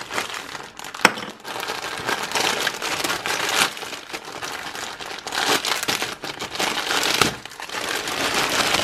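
Plastic courier mailer crinkling and rustling as it is cut open with a small knife and the packed contents are pulled out, with a sharp snap about a second in.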